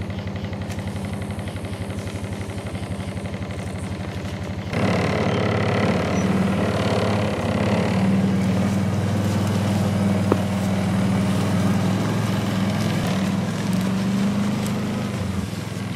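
Side-by-side utility vehicle's engine idling with an even firing rhythm. About five seconds in it becomes louder and steadier, as if revved or put under load, and it drops back near the end. A single sharp click comes about ten seconds in.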